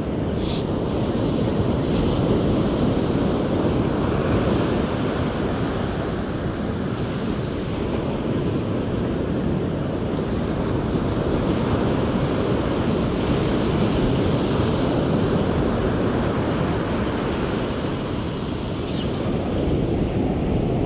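Ocean surf breaking and washing up a sandy beach, a steady rushing that swells and eases, with wind buffeting the microphone. A brief click about half a second in.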